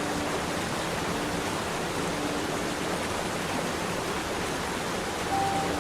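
Steady rushing of falling water from a waterfall, an even hiss that does not change.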